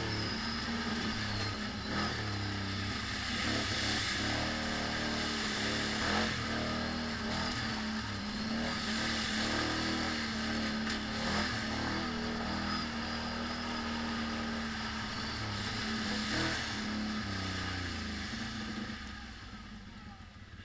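ATV engine running under varying throttle on a muddy trail, its pitch rising and falling, with occasional knocks. The engine drops back near the end.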